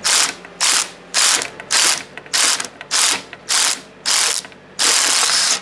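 Small impact wrench (rattle gun) hammering on a three-jaw gear puller's forcing screw in about nine short bursts, the last one longer, as the puller draws a worn tapered roller bearing off a truck PTO shaft.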